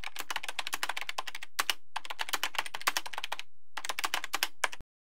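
Rapid, dense clicking like fast typing on a keyboard, in runs broken by short pauses about one and a half and three and a half seconds in, stopping abruptly near the end.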